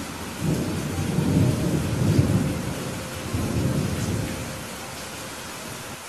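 A long roll of thunder over steady rain. The thunder comes in about half a second in, swells twice and dies away near the end, leaving the rain.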